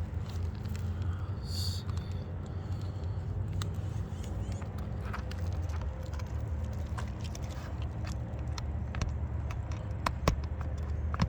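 Scattered light clicks and taps as asphalt shingles are lifted and handled on a roof, over a steady low rumble. The taps get sharper and come more often near the end.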